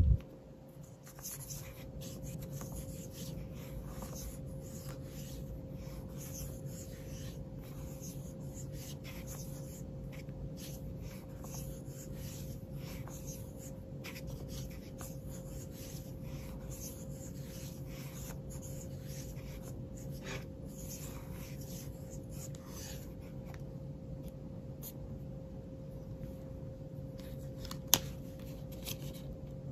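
A cleaning wipe rubbing over a phone's glass screen in many short, scratchy strokes that thin out after about twenty seconds. A loud knock comes right at the start and a sharp click near the end.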